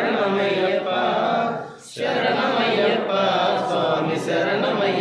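Devotional chanting of an Ayyappa hymn, sung in long held lines with a short break about two seconds in.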